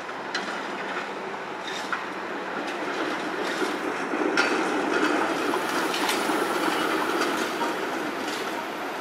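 TTC CLRV streetcar rolling through a street-track junction: its steel wheels run on the rails with a steady rumble and occasional clicks over the switches and crossings, getting a little louder in the middle and easing off near the end.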